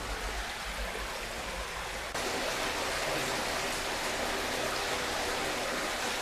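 Floodwater rushing steadily. About two seconds in it gets louder, as streams of water pour through a hole in a collapsed wall into a flooded room.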